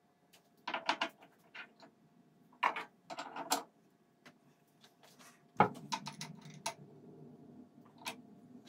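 Steel tool parts clicking and clunking as a collet fixture is handled and clamped in a milling-machine vise. There is a sharp metal knock a little past halfway, then low scraping and scattered clicks, and a last click near the end as a spanner goes onto the collet nut.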